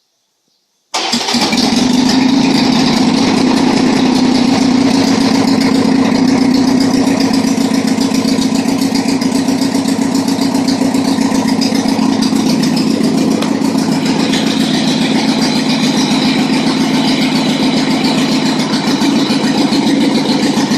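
Harley-Davidson 883 Sportster's air-cooled V-twin running steadily at idle, warming up after a fresh oil change. It cuts in suddenly about a second in.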